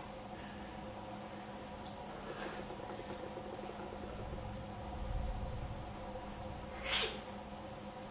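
Quiet room tone with a steady high-pitched whine and a low hum, and one short sharp sniff through the nose about seven seconds in, after snorting powder.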